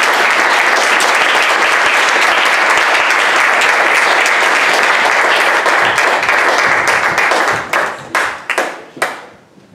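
Audience applauding steadily, then the applause thins to a few last separate claps and dies away near the end.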